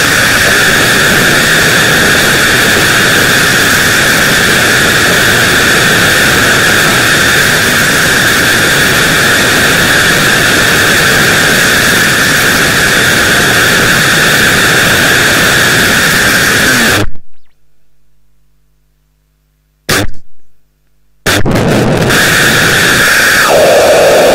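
Loud, dense static-like electronic noise with a steady high drone held over it. It cuts off abruptly about 17 seconds in, with one short burst of noise in the gap, and starts again about four seconds later, with a lower drone near the end.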